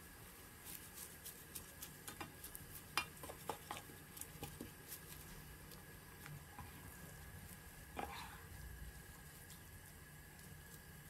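Wooden spoons turning blanching shepherd's purse greens in a pan of hot water: faint scattered taps and clicks of wood on the pan and wet rustling of the leaves, busiest in the first half, with a louder stir about eight seconds in.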